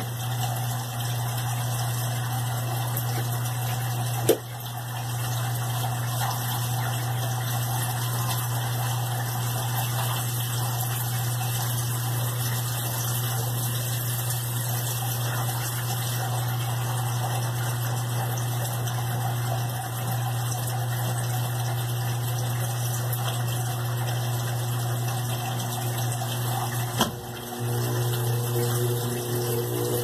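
Brastemp BWL11 top-load washing machine draining: its drain pump runs with a steady low hum. A sharp click comes about four seconds in and another near the end, after which the motor starts spinning the basket with a rising whine as the spin cycle begins.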